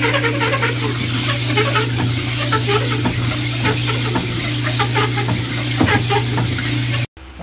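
Cylinder honing machine running, its hone working in the bore of a Kawasaki 900 cylinder under flooding oil. This is the final honing to size for a press-fit sleeve. It makes a steady motor hum with a hiss and many small irregular ticks, and cuts off suddenly near the end.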